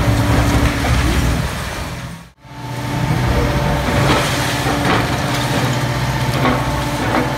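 Liebherr R 950 high-reach demolition excavator running steadily under load while its hydraulic crusher jaws break into the concrete of the upper floors, with a few sharp crunches and knocks. The sound cuts out briefly about two seconds in.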